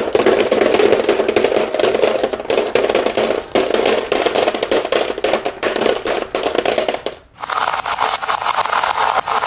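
A steady stream of marbles rolling down a winding groove in a wooden slope and clattering into the bed of a plastic toy dump truck: a dense run of clicks over a rolling rumble. About seven seconds in, the sound drops out for a moment and comes back brighter.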